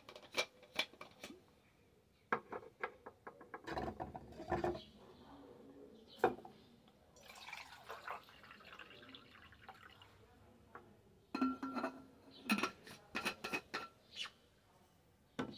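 Clinks and knocks of metal as a stainless steel bottle is opened and a stainless steel camping mug is handled, then water poured from the bottle into the mug for a few seconds, then more metal clinks with a brief ring as things are set down on the table.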